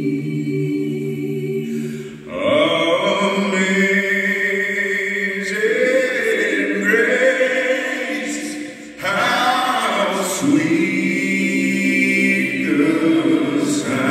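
Several voices singing together in harmony, holding long notes in phrases that break briefly about two seconds and again about nine seconds in.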